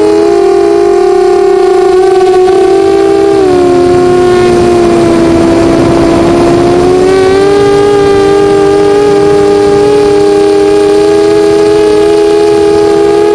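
Eachine 250 racing quadcopter's motors and propellers whining steadily as several close pitches, which dip lower about four seconds in and climb back up about seven seconds in as the throttle changes.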